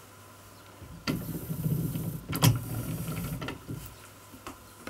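Change-gear train linking an old lathe's headstock spindle to its lead screw being turned over, the gear teeth meshing in a rough mechanical run of about two and a half seconds starting about a second in, with a few sharp clicks.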